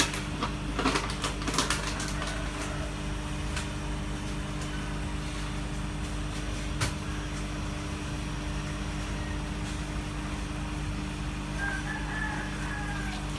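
Steady mechanical hum with several constant low tones. A few sharp clicks or knocks come in the first two seconds and one more about seven seconds in.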